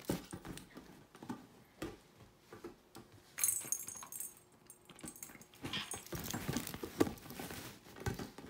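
A white-faced capuchin monkey scuffling with a large inflatable vinyl ball on a bed: irregular thumps, taps and rustling of the ball and bedding, with a brief bright jingle about three and a half seconds in.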